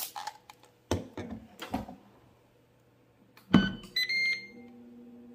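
A few soft knocks, then a thump about three and a half seconds in, followed by short electronic beeps from the Ninja Foodi Pro XL grill's control panel as it is set to air crisp.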